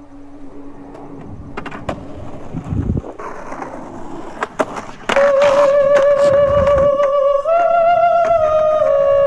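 Skateboard wheels rolling on asphalt, with a few sharp clacks of the board. About five seconds in, loud music with long held, slightly wavering tones comes in and covers it.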